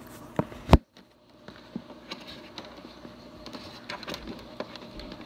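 Handling noise while a monitor cable is plugged in: two knocks in the first second, a brief dropout, then scattered small clicks and rustling.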